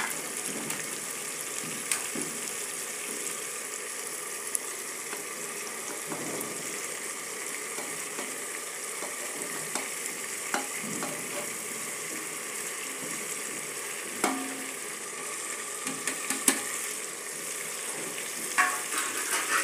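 Mutton and masala sizzling in hot oil in an open pressure cooker, a steady frying hiss. A few sharp clicks and knocks come through it as chopped tomatoes are tipped in from a steel plate.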